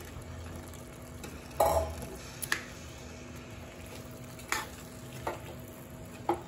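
A steel ladle stirring boiled kidney beans and potato into thick masala in a metal kadai. About five scrapes and knocks against the pan, the loudest about a second and a half in, over a steady low sizzle.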